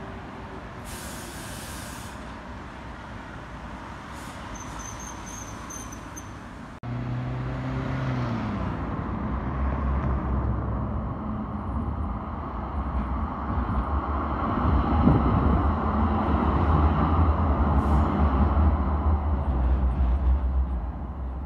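Sheffield Supertram tram on street track. Its motors hum and its wheels rumble on the rails, and it grows louder as it approaches and passes, loudest in the second half. A car passes close with a falling engine note just after an abrupt change in the sound partway through.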